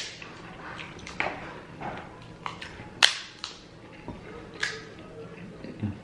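Seafood shells being cracked and snapped apart while eating a seafood boil: a string of sharp cracks, about eight in all, the loudest at the start and about three seconds in.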